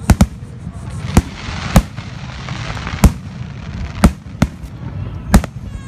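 Aerial fireworks bursting overhead: a string of sharp, irregularly spaced bangs, about eight in all, with a crackling fizz from the bursting stars about a third of the way in.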